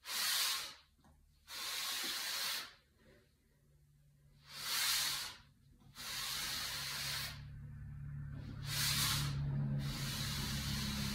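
Plastic exercise sliders rubbing across carpet as the feet are slid out and drawn back: about six hissing swishes, each around a second long.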